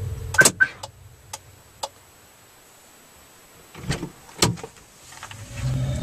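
Clicks and knocks of someone getting into a car: two sharp clicks about half a second in, a few light taps, then two heavier thumps around four seconds in as the car door is shut.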